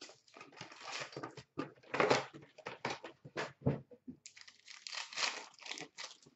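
Hockey card pack wrappers and a cardboard box crinkling and rustling as the packs are lifted out of the box and handled, in a run of quick rustles with a rougher crinkling stretch about four seconds in.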